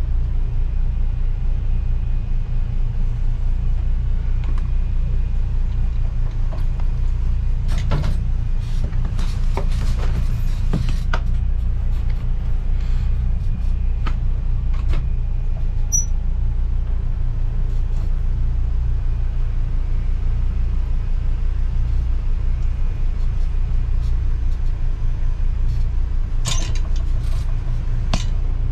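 Boat engine running, a low, steady rumble at a constant level, with a few light knocks about eight to eleven seconds in and again near the end.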